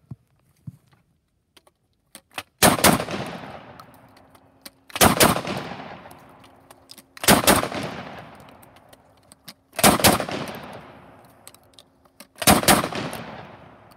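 Charles Daly Model 512 12-gauge double-barrel shotgun firing: five loud shots about two and a half seconds apart, each with a long fading tail, while the gun is broken open and reloaded between them. A few light clicks from handling the gun come before the first shot.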